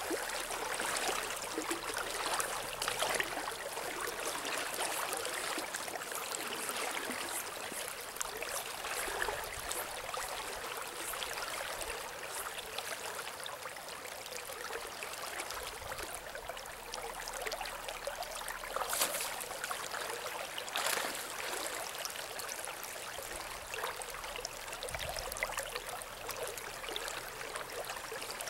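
Steady rushing and rippling of a river's current. Two short louder sounds stand out about two-thirds of the way through.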